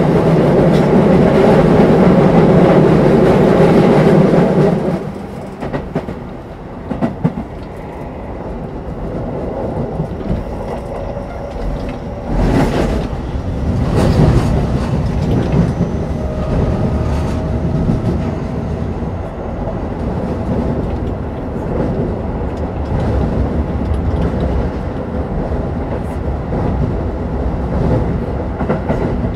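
Keio 9000 series electric train running, heard from inside motor car DeHa 9153. A loud, steady drone for about the first five seconds drops away to quieter running noise, with a few sharp clicks from the wheels around the middle.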